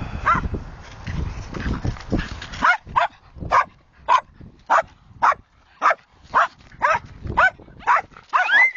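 Dog barking repeatedly, about two short barks a second, starting about three seconds in; the last call near the end is higher-pitched and drawn out.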